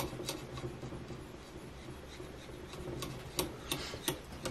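Fine abrasive being stroked along a hatchet's edge on a guided angle sharpener: scratchy rubbing with sharp ticks, more of them near the end. The sharpener finds the sound strange and can't place it; the abrasive is oiled, not running dry.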